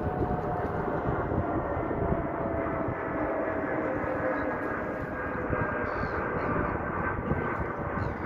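Steady engine drone with a few faint tones that slowly sink in pitch, over gusty wind rumble on the microphone.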